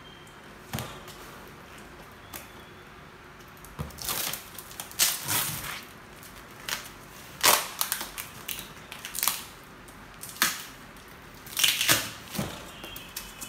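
Cardboard box being torn open by hand: a string of irregular rips and scrapes that starts about four seconds in.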